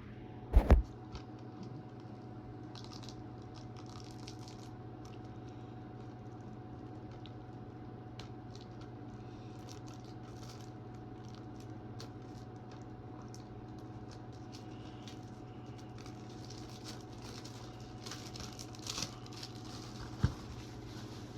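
A plastic DVD case and its wrapping being handled and opened: two sharp knocks about half a second in, then faint scattered clicks and crinkling over a steady hum, with a few more knocks near the end.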